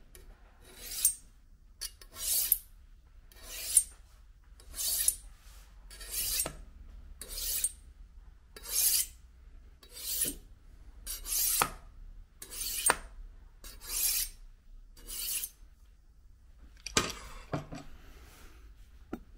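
Kitchen knife blade drawn down a steel honing rod, about a dozen rhythmic metal-on-metal scraping strokes, one roughly every second and a bit, realigning the edge of a dull knife. Near the end there is a brief knocking and scraping.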